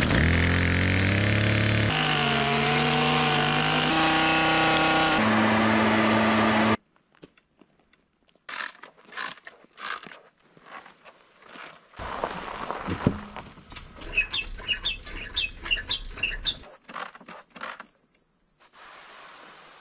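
Gas chainsaw running at high revs, its pitch changing in steps, then stopping abruptly about seven seconds in. After it come quieter ticks and rustles, and a bird chirping a quick run of notes.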